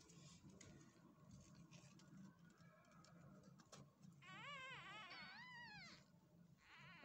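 Newborn Persian kittens mewing as they nurse: a wavering, high-pitched cry about four seconds in that lasts nearly two seconds, and a short one near the end.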